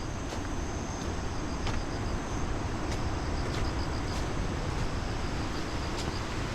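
Wind noise on the microphone with rain falling, a steady low rumble under an even hiss, and a few sharp ticks from drops. Crickets or other insects chirp faintly and high in the background.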